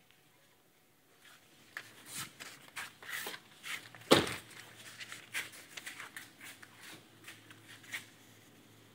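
Rustling and clicking movement noise as someone climbs out of an SUV and walks away, with one heavy thump about four seconds in.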